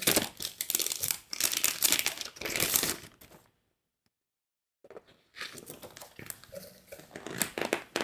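Clear plastic packaging crinkling and rustling as a pattern booklet is handled in and out of its plastic sleeve. A dense run of crinkling lasts about three and a half seconds, breaks off for about a second, then resumes as scattered crinkles and clicks of plastic and paper.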